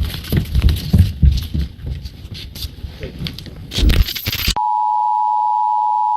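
Harsh, crackling distorted noise full of irregular clicks over a low throb. About four and a half seconds in it cuts off sharply into a loud, steady two-tone emergency alert signal.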